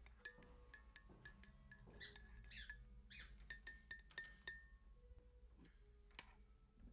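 Faint, scattered clicks and clinks of small hard objects, several leaving a short ringing tone behind them.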